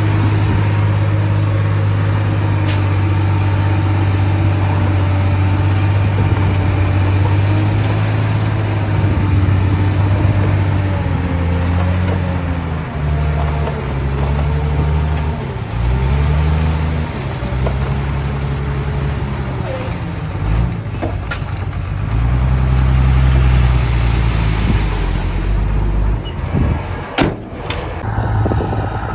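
Komatsu D31P bulldozer's diesel engine running at a steady pitch, then its engine speed rising and falling repeatedly from about a third of the way in. A few sharp knocks near the end.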